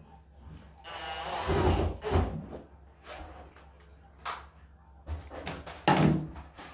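Scattered knocks and bumps of household handling: a longer, scraping knock about one to two seconds in, a few small clicks, and a sharp loud thump near the end.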